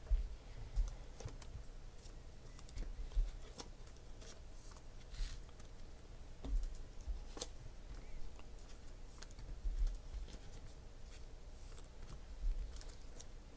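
Panini Prizm football cards being handled and set down on a tabletop: irregular light clicks and ticks of card stock, with soft thumps of the hand on the table.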